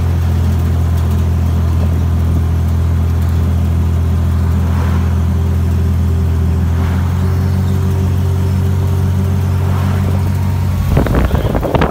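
Flat-fender military Jeep's engine running at a steady cruise, heard from inside the vehicle as a loud, even, low drone. Near the end it gives way abruptly to rough, gusty wind noise on the microphone.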